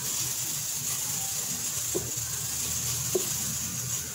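Steady hiss and low hum, with two brief soft sounds about two and three seconds in as a hand presses risen bread dough down in a stainless steel bowl to push the gas out.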